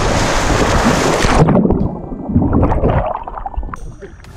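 Heavy splashing of people running and plunging into shallow sea water. About a second and a half in, the sound abruptly turns muffled, with low gurgling and scattered knocks, as the action camera goes under the surface.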